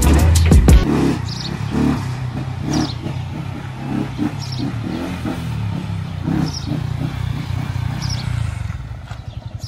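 Background music cuts off within the first second. Then the single-cylinder engine of a Yamaha R15 V3 runs at low revs as the motorcycle pulls away slowly.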